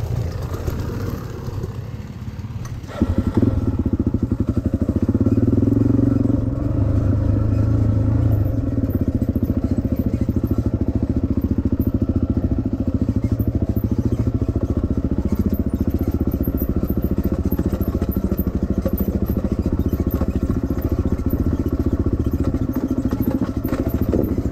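Single-cylinder Suzuki dirt bike engine running at low trail speed, close to the microphone. The engine picks up sharply about three seconds in and runs harder for a few seconds before settling to a steady pull up the rocky track.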